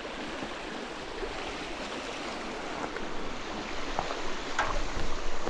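Rushing water of a small trout stream running over rocks in a riffle, a steady rush that grows a little louder near the end.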